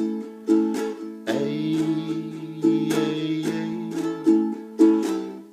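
Ukulele strummed in a calypso rhythm, chords ringing out with a quick stroke about every half second.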